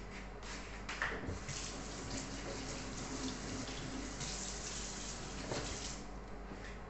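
Kitchen tap running into a sink for about five seconds, coming on about a second in and stopping near six seconds.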